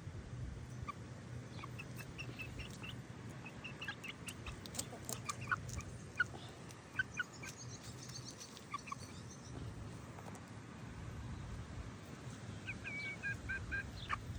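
Birds calling: scattered short chirps and clucking notes, with a quick run of chirps near the end, over a steady low hum.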